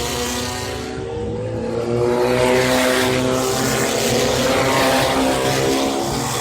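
Off-road race car engine running hard, its pitch dipping slightly, then climbing for a couple of seconds as it accelerates and holding high.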